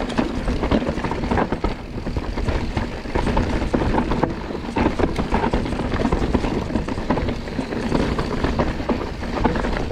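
Mountain bike running fast down a rough, dusty trail: tyres rumbling over dirt and stones, with many short knocks and rattles from the bike and chain.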